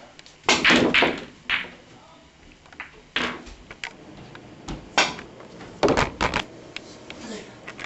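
Pool game on a home table: several loud knocks and clatters as cue balls are struck and balls collide.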